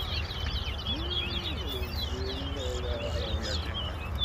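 Towa-towa (chestnut-bellied seed finch) singing: a rapid, continuous run of high chirps and whistled slurs, over a steady low hum.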